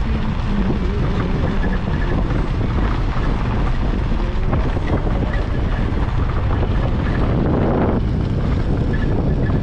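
Wind rushing over the microphone with the steady low rumble of a vehicle driving along a dirt road.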